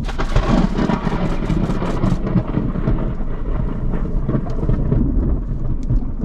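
Thunder rumbling, heard from inside a car: loudest and fullest in the first two seconds, then easing to a low steady rumble. Scattered raindrops tap on the car's glass and body.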